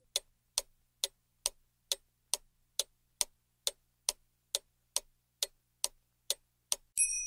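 Ticking-clock sound effect, about two even ticks a second, timing the thinking pause while a riddle waits for its answer. A bright chime sounds right at the end.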